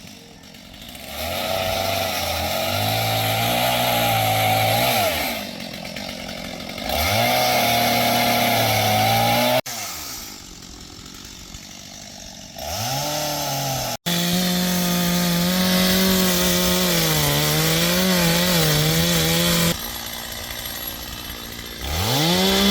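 Gasoline chainsaw revving up from idle, running at high speed and dropping back, several times over. Near the middle it runs for a few seconds with a wavering pitch while cutting branches. The sound breaks off abruptly twice.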